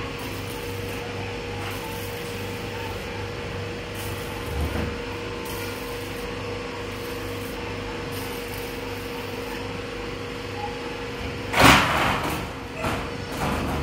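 Corrugated metal roofing sheets clattering loudly once, followed by a few smaller knocks, over a steady background hum.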